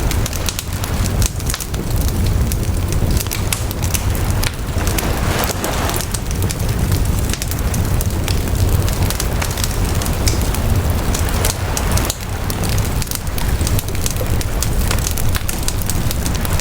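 A campfire crackling and popping, with many sharp snaps over a steady low rumble, while sea waves wash on the shore, swelling about five seconds in and again near the end.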